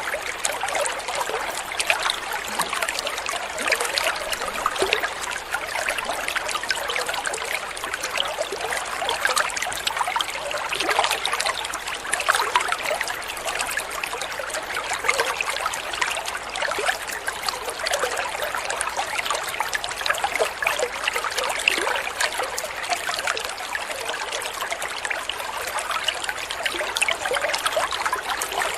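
Running water trickling steadily, a continuous bubbling splash with no pauses.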